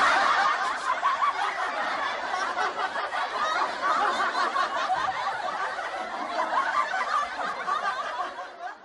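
Many people laughing at once, a dense, continuous crowd laugh that cuts off abruptly near the end, like an edited-in laugh track.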